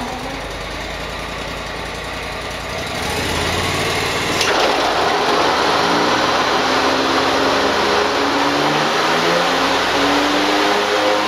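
Grasshopper 725K zero-turn mower's diesel engine running. About three seconds in it speeds up, and a second later, with a sharp click, a louder rushing sound joins it as the mower deck is run to test its new belt.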